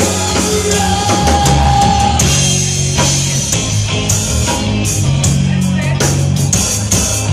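Rock music playing loudly, with a drum kit keeping the beat under sustained instrument notes.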